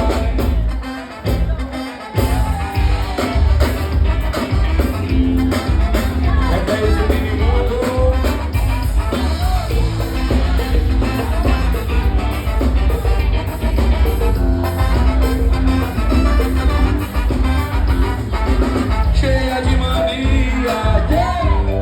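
A band playing a song with a singer over a heavy, steady bass beat. The music thins out briefly about a second in, then comes back in full.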